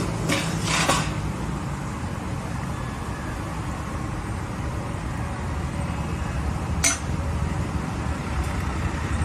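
Steady low rumble of road traffic, with a few sharp clinks of dishes in the first second and one more sharp clink about seven seconds in.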